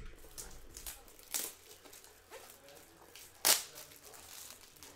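Plastic wrapping crinkling and tearing as a sealed trading card box is opened by hand, with a sharp, loud snap about three and a half seconds in.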